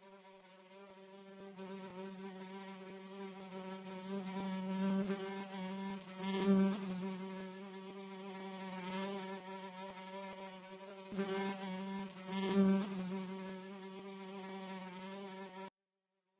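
Bluebottle fly buzzing: a steady low drone that fades in, swells louder a few times, and cuts off suddenly near the end.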